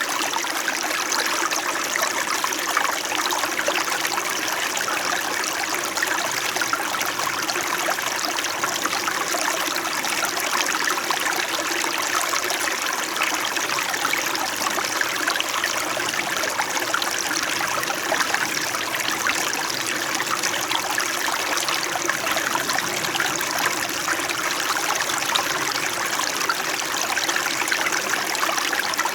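Small mountain brook flowing and babbling steadily, an even wash of running water with fine splashing.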